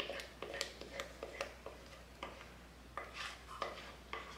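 Wooden spoon scraping and knocking against the inside of a stoneware mixing bowl as thick pumpkin batter is scooped out, in irregular short clicks and scrapes, busiest about three seconds in.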